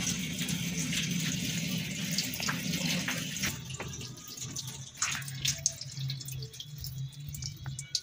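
Water running and dripping from a washing machine's broken hose, over a steady low hum. The running water dies down about three and a half seconds in, leaving scattered drips.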